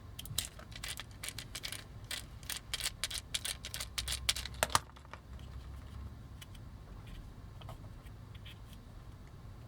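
Quick, irregular clicks and taps of small plastic toy parts and screws being handled while a vintage Transformers figure is taken apart. The clicks come thick for about five seconds, then thin out to a few.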